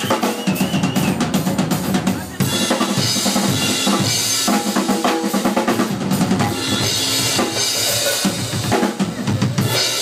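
Live drum kit playing a busy groove of bass drum, snare and rimshots, with a brighter cymbal wash from about two and a half seconds in.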